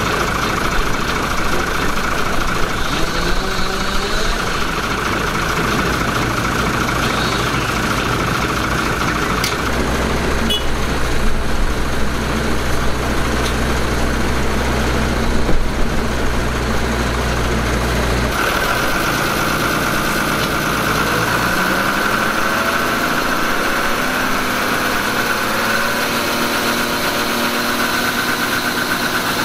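Fiat 140-90 Turbo DT tractor's turbo diesel running steadily while driving a Pezzolato PTH500 wood chipper, a continuous drone with a steady higher hum above it. The tone of the drone shifts abruptly about a third of the way through and again about two-thirds through.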